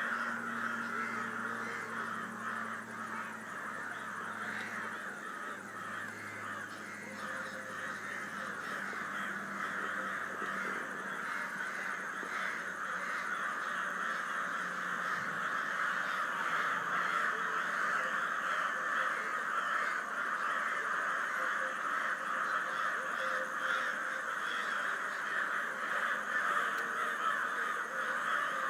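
A large flock of crows cawing continuously, many calls overlapping into a constant din that grows a little louder about halfway through.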